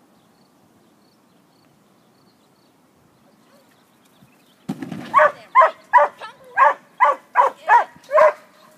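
A dog barking over and over while running the course, about two to three sharp barks a second, starting a little under five seconds in after quiet field ambience.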